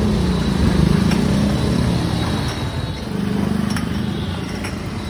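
Low engine rumble of street traffic that swells and fades, with a few light clinks of glass bottles set down in a metal tray.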